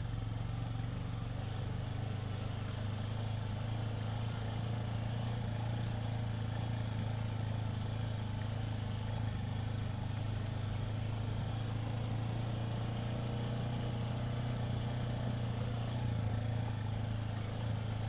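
Side-by-side off-road vehicle's engine running steadily as it drives along a dirt trail, heard from inside the cab: an even, low drone with road noise.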